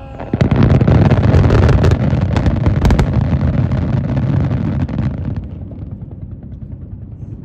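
Fireworks bursting in a rapid barrage of bangs and crackles, starting about half a second in, then dying away into a fading rumble after about five seconds.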